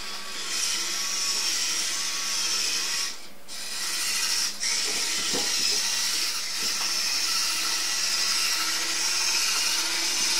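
Motorized Android robot toy running, its small motor and plastic gears whirring steadily with a faint repeating wobble as it moves along. The whir dips briefly twice, a few seconds in.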